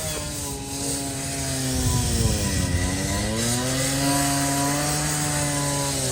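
A motor vehicle's engine running, its pitch dipping about halfway through, then rising again and holding steady.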